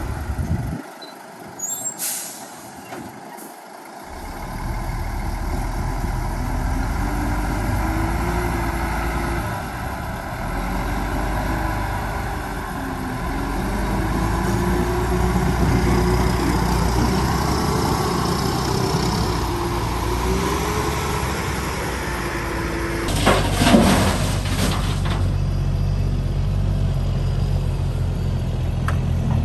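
Heavy diesel engine of road-construction machinery running, growing louder about four seconds in and then holding steady. A short burst of air hiss comes about three quarters of the way through.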